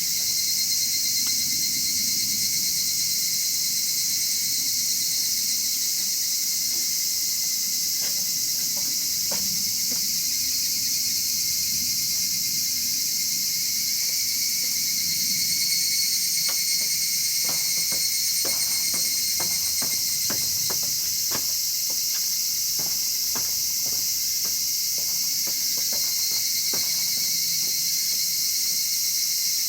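A steady high-pitched insect chorus, with a wood fire crackling in a chiminea: scattered sharp pops, few at first and coming thick and fast through the second half.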